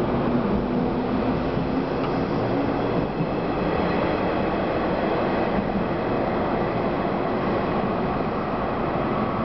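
Electric local train departing the station: a steady running noise of its wheels and motors as the cars roll past and the train pulls away.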